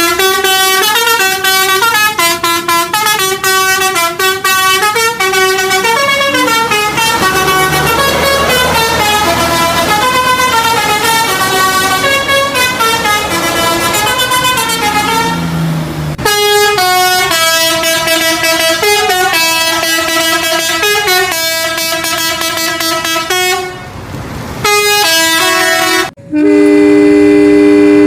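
Telolet horns: multi-tone musical air horns playing quick stepping melodies of short repeated notes, in several clips cut together. Near the end one long steady horn chord is held for about two seconds.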